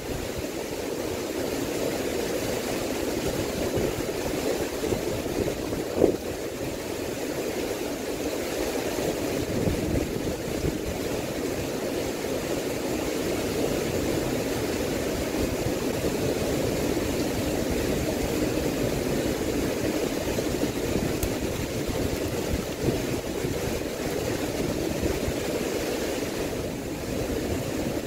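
Steady noise of typhoon wind and heavy rain, with gusts rumbling on the microphone. One sharp knock stands out partway through.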